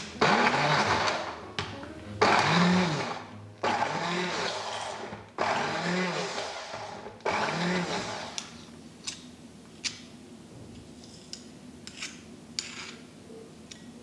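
Hand-held stick blender puréeing strawberries and yoghurt in a glass bowl, run in about five bursts of a second or two, its motor pitch dipping and recovering in each burst. It stops about eight seconds in, followed by a few light clicks of a metal spoon.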